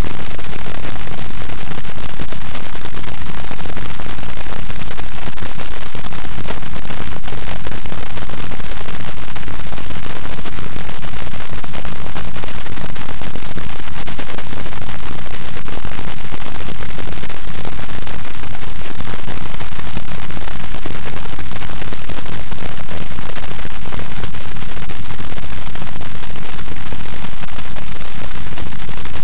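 Loud, steady static noise with a fine crackle, at near full volume and with no voice audible through it: the recording's sound track is corrupted, a fault in the screencast's audio capture.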